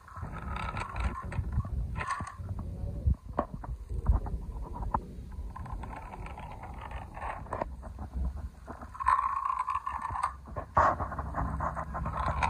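Die-cast model cars pushed by hand over rough concrete: their small wheels rolling with a gritty rumble and scrape, with scattered clicks.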